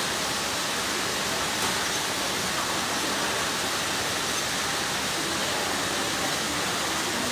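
A steady, even hiss with nothing standing out from it.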